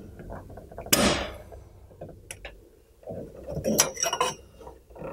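Metal clicks and scrapes of a clip removal tool working the spring clip off a car window crank arm. There is one sharp click about a second in, then a few small ticks and a cluster of clinks and rattles about three to four seconds in.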